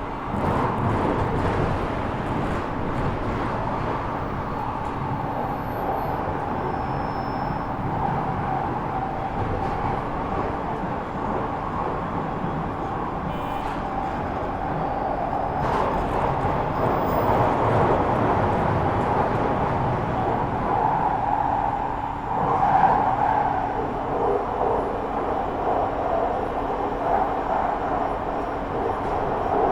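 London Underground 2009 Tube Stock train running between stations: the steady electric whine of its Bombardier Mitrac IGBT VVVF traction inverter and DR1000 induction motors, picked up by a telephone pickup coil, mixed with the train's running rumble. The sound grows a little louder through the middle.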